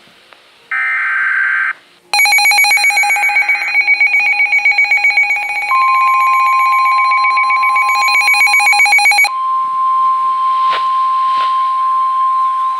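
Weather radios sounding their warning alarms. A one-second electronic tone comes first, then a fast, even pulsing beep of several tones. About halfway in the steady 1050 Hz NOAA Weather Radio warning alert tone joins, and near the end the pulsing stops while a warbling alarm begins.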